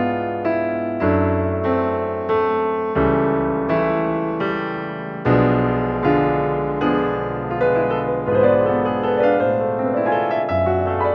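Background piano music: a gentle melody of separate notes, each struck and fading away, over bass notes that change every second or two.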